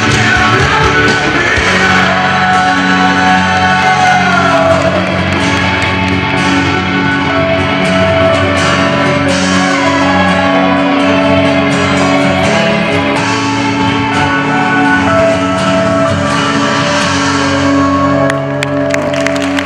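Rock song with guitar and a sung vocal, played loudly through a hall's sound system. Near the end the music drops back and clapping begins.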